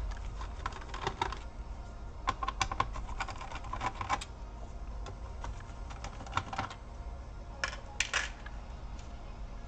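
Small sharp clicks and taps of tools and gloved fingers on a laptop's plastic palmrest and internals during disassembly, coming in irregular clusters over a faint low hum.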